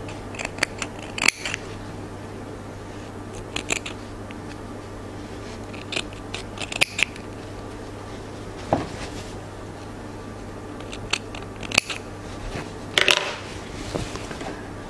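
Small thread snips clipping at fabric: a scattering of short, sharp snips and clicks with pauses between, and the handling of the cloth between cuts.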